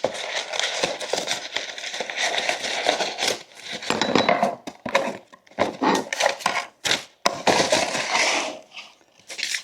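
Product packaging being opened and handled: rustling and crinkling, with many small clicks and light clinks of the metal parts inside.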